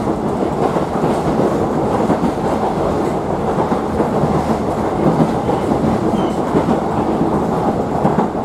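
Yoro Railway electric train heard from inside the passenger car while running: a steady rumble of wheels and running gear on the rails.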